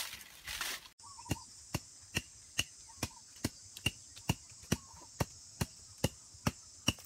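A digging tool striking sandy ground in a steady rhythm, a little over two strokes a second, each a sharp knock. It plays over a steady high insect drone. Just before that, about the first second is rustling in dry brush and leaves.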